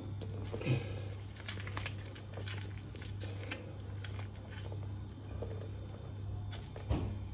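Half a lemon being squeezed and twisted on a metal fork over a bowl: soft wet squelches of the pulp and small irregular clicks of the fork, over a steady low hum.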